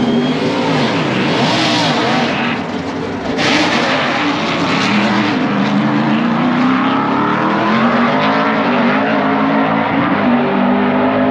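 NASCAR Truck Series race truck's V8 engine running hard on track during qualifying, its pitch sliding down and back up as it goes by. Loudness dips briefly, then surges back about three and a half seconds in.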